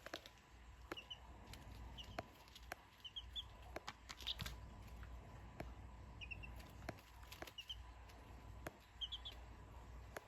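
Domestic chicks giving soft, short high peeps in quick twos and threes, a group every second or so: chicks settling down to sleep. Faint scattered clicks and taps sound among the peeps.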